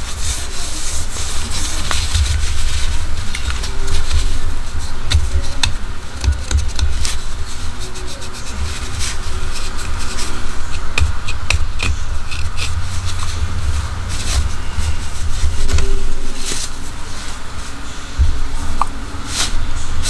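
Handling noise from unboxing a multitool: hands rubbing and shifting the box and tool, with many small clicks and a low rumble that swells and fades.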